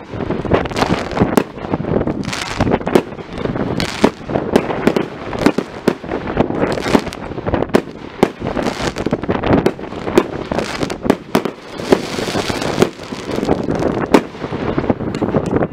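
Fireworks display: aerial shells bursting in a continuous barrage, many sharp bangs in quick succession with no break.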